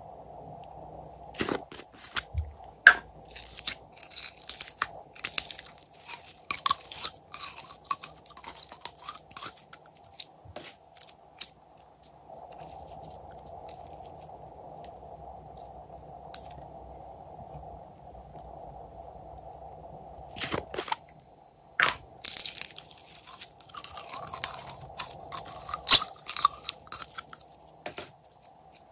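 Glitter slime being handled and stretched: runs of sticky, crackling clicks and pops. The clicking comes in two spells with a quieter stretch of several seconds between, over a faint steady hum.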